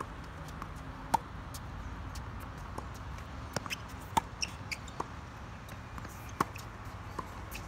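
Tennis balls struck by rackets in a baseline rally: sharp pops a couple of seconds apart, the loudest about a second in, just after four seconds and past six seconds, with softer knocks of the ball bouncing and of footsteps between them.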